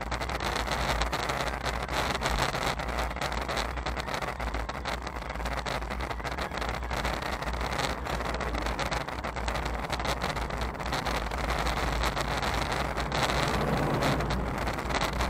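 Steady wind rumble and road noise on an action camera riding on a moving bicycle, with oncoming cars passing and a slight swell near the end.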